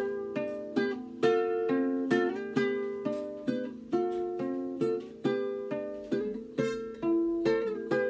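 Classical guitar fingerpicked solo: an improvised, traditional-sounding folk tune of single plucked melody notes over bass notes, about two notes a second, each ringing and fading.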